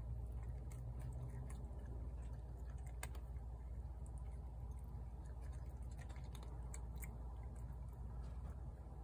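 A cat crunching dry kibble from a bowl: a scatter of small, irregular crunches and clicks over a steady low rumble.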